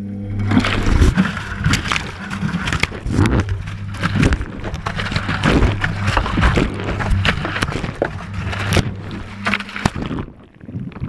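Washing machine drum motor starting up and turning the drum with a steady low hum, heard from inside the drum, with wet laundry and water tumbling and knocking irregularly around the microphone. The motor stops about ten seconds in, leaving a fainter rumble as the drum settles.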